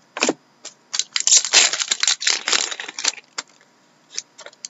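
Crinkling and crackling of a trading-card pack wrapper and cards being handled, with a short burst about a quarter-second in and a dense stretch of crinkling from about one to three seconds in.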